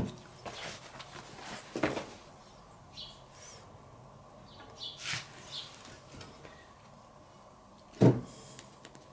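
A cast-iron loaf tin and a freshly baked loaf being handled on a wooden table: a few soft knocks, then a louder thump about eight seconds in as the tin is moved. Faint bird chirps sound in between.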